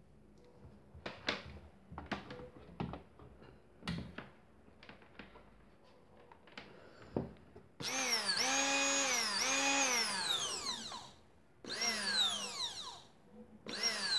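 A few knocks and clicks as the hand blender is handled and fitted together, then its 400 W motor runs with a steady whine for about three seconds, dips briefly, and winds down with falling pitch. Two shorter bursts follow, each dying away: the repaired blender, which had not switched on, now runs.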